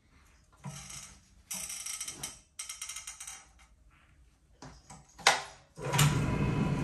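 Several short scraping and knocking handling noises from a rotary floor machine, with one sharp knock about five seconds in. Then its motor switches on just before the end and runs with a steady hum, spinning a dry towel pad over carpet to speed drying.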